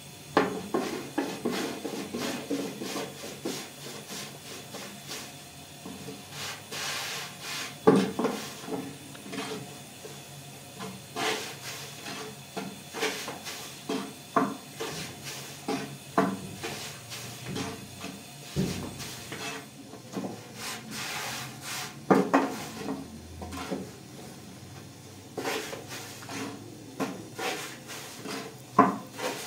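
Irregular knocks, clatters and scraping of household objects being handled, the sharpest knock about eight seconds in.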